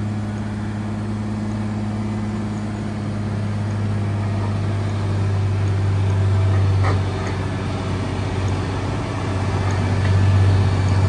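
Aircraft tug's engine running steadily as it tows a Boeing 777, a deep hum that grows louder near the end. A brief click about seven seconds in.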